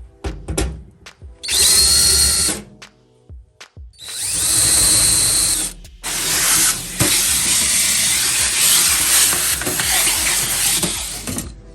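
Power drill boring the bolt holes for a battery mount, in three runs: a short one, a longer one, then a long one of about five seconds. Its pitch climbs quickly as each run starts.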